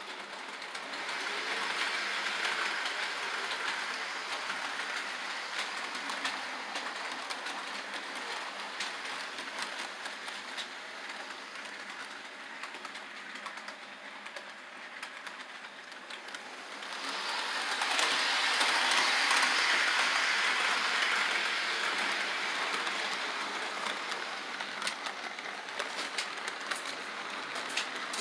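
HO scale model trains running on sectional track: a steady whir of wheels and motors with light, irregular clicking over the rail joints. It swells twice, about a second in and again past the middle, as trains pass close by.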